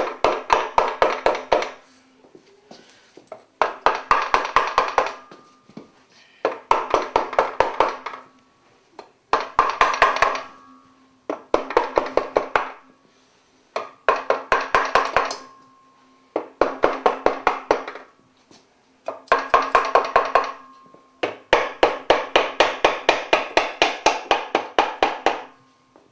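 Plastic hammer tapping gently on a Porsche 911 engine crankcase to split the two case halves apart. The taps come in quick runs of several a second, each run lasting a couple of seconds, with short pauses between.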